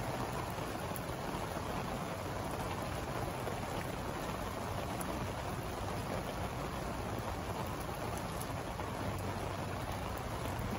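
Steady rain falling, an even hiss that holds without a break.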